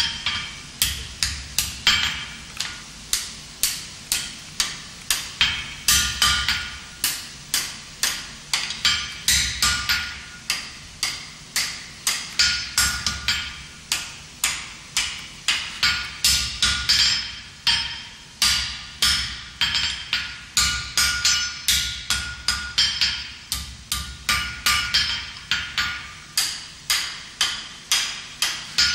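Blacksmith's hand hammer striking a red-hot thin iron bar on an anvil, forging it into a sharp angle over the anvil's edge. It is a steady run of blows, about two to three a second, each with a short metallic ring.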